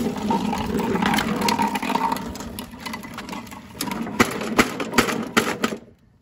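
2000 Craftsman walk-behind lawnmower being wheeled over concrete, its plastic wheels and deck rattling and clattering, louder at first and then easing off. Near the end come four or five sharp knocks, about half a second apart.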